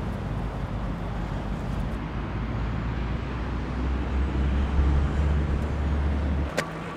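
Low rumble of road traffic. It swells into a deeper vehicle drone over the last few seconds, then cuts off abruptly, followed by a single sharp click.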